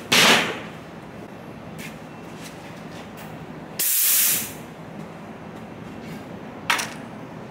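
Three short bursts of hissing over a steady background hum; the longest and loudest, about half a second, comes about four seconds in.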